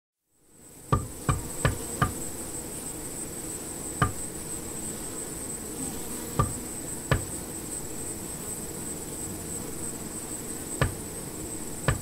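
Hammer driving nails into a wooden boat: about nine sharp blows, four in quick succession about a second in, then single strikes spaced a few seconds apart. Under them runs a steady high-pitched insect trill.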